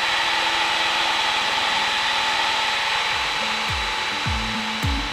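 Steady drone of a Piper PA-28's piston engine and propeller at climb power just after takeoff, heard inside the cockpit. Background music with falling bass notes comes in over it about three seconds in.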